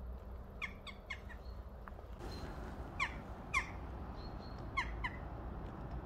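Jackdaw giving short, clipped calls, about seven in all, the first three in quick succession and the rest in pairs, over a low steady background rumble.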